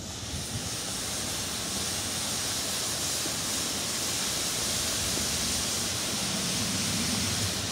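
Pot of water at a rolling boil over an open wood fire, giving a steady hiss.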